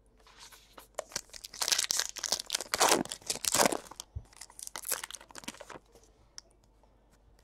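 A foil trading-card pack wrapper being torn open and crinkled by hand: a quick run of crackling rips and rustles that dies away about six seconds in.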